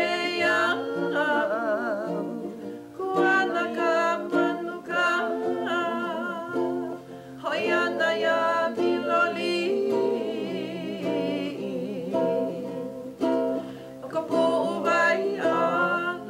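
A woman singing a slow Hawaiian song in phrases, with wavering pitch, accompanying herself on a strummed ukulele.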